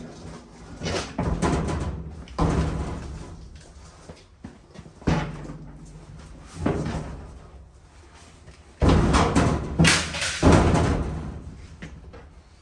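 Irregular metal knocks and clanks from parts of an International A414 tractor's rear end being worked loose and taken off by hand, with a louder stretch of clattering about nine to eleven seconds in.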